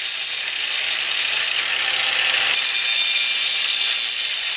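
Angle grinder with a thin cutoff disc cutting through steel: a loud, steady high-pitched whine with grinding noise, somewhat stronger around the middle. It is cutting off excess metal at the sway bar mount once the relocation kit is bolted in.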